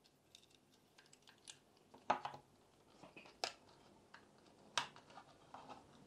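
Faint handling noises of small electronic parts and a plastic case: scattered light clicks and ticks, three sharper clicks spread through, as a micro switch and its wires are worked into the enclosure.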